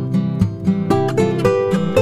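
Instrumental background music, with a steady run of plucked notes at about four a second.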